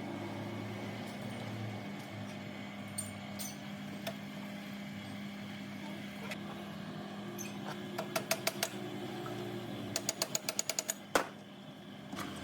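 Steady machine hum in a workshop, broken twice by short runs of rapid metallic clicks, about eight a second, and a single sharp knock near the end, after which the sound drops quieter.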